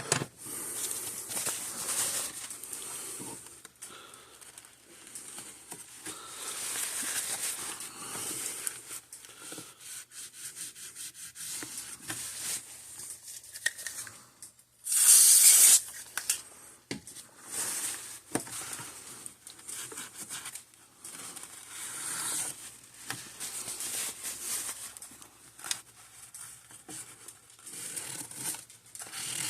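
Irregular scratching, rubbing and rustling of hands working on a circuit board at a bench, with one loud hiss lasting about a second halfway through.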